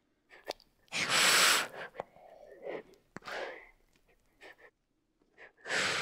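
Asian water monitor hissing: a series of short, breathy hisses, the longest and loudest about a second in.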